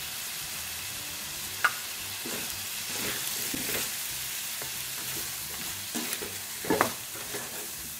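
Vegetables and spice powders frying with a steady sizzle in a metal pot while being stirred with a wooden spoon, with a couple of sharp knocks of the spoon against the pot, one about two seconds in and a louder one near the end.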